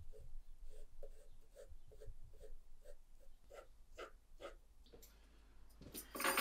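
Pencil scratching on paper in short strokes, about two to three a second, as a child draws. About six seconds in, a door is opened with a louder rushing clunk.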